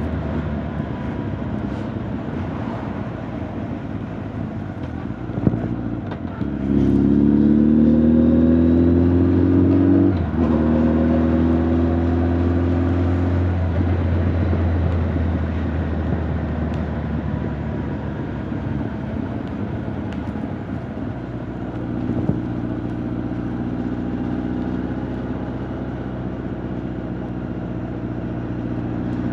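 Honda CB1300 Super Bol d'Or's inline-four engine and exhaust under way: steady cruising, then about six seconds in a louder pull with the pitch rising, a quick gear change about ten seconds in and a second rising pull, after which it settles back to a steady cruise.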